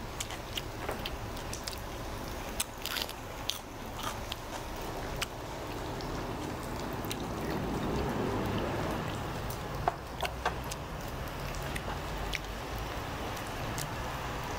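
Crunchy chewing of a lettuce wrap with green chili pepper, with small clicks and crunches, then soju poured from a glass bottle into a shot glass, swelling and fading about six to nine seconds in.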